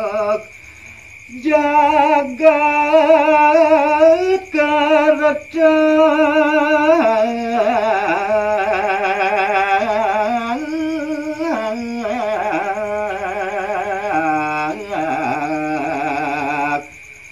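A man singing a Balinese gaguritan verse in tembang macapat (pupuh) style, with no instrument behind him. He holds long, melismatic notes with a wide, quick vibrato, pausing for about a second near the start and briefly between phrases.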